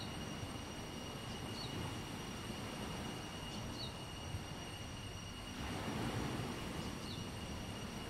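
Beach ambience: a steady low rush of wind and surf that swells for about a second a little past the middle, with a few short high bird chirps and a faint steady high tone.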